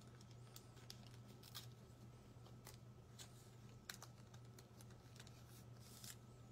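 Faint, scattered light clicks and taps, irregular, about two or three a second, over a steady low electrical hum.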